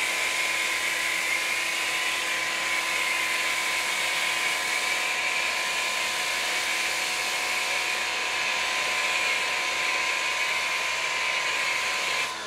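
Pressure washer running with a steady motor tone while an ArmorAll foam cannon sprays a hissing jet of foam. The spray cuts off abruptly near the end.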